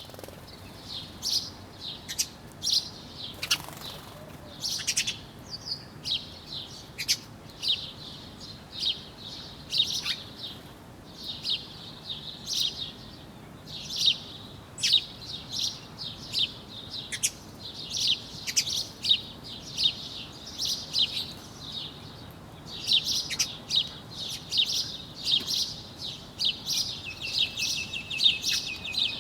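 A flock of birds chirping continuously, many short high-pitched chirps overlapping one another, with a rapid trill near the end.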